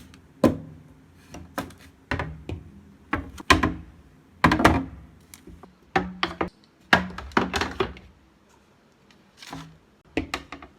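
Irregular knocks and clatters, about a dozen, of containers and trays being set down and shifted on fridge shelves.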